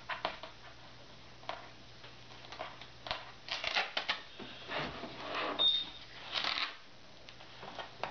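Adhesive tape being picked at and peeled off a plastic air fryer housing: scattered small clicks and crackles, with a few longer crackling pulls about three and a half, five and six and a half seconds in, and a brief high squeak just before six seconds.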